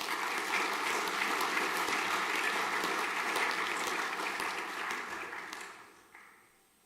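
A school assembly audience applauding steadily, then dying away over about a second, five to six seconds in.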